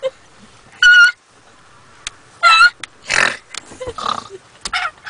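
A girl's shrill, squealing laugh: two high-pitched squeals about a second and a half apart, then breathy laughter.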